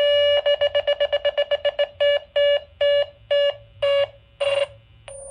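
Electric guitar feedback through the DiPinto Galaxie's built-in amp: a steady high howl, then stuttered on and off by the pickup disconnect button, fast at first and slowing to about two a second before fading near the end.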